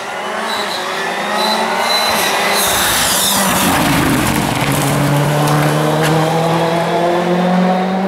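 Ford Fiesta rally car's turbocharged engine at full throttle, accelerating out of a hairpin and past at close range, its revs climbing steadily. A rush of tyre noise comes as it passes, about halfway.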